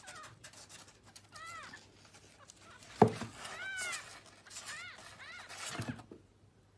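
A domestic cat meowing several times in short calls that rise and fall in pitch, with a sharp knock about three seconds in.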